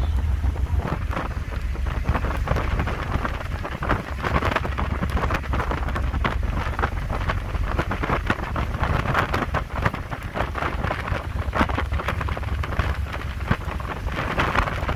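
Wind buffeting the microphone on the open deck of a high-speed ferry under way, with the rushing, crackling noise of the churning wake behind it.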